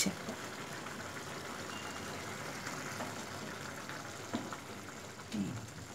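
Sweet-sour raw-mango chutney in a thin sugar syrup bubbling steadily in a frying pan, a soft even boiling hiss, with a faint tap or two near the end.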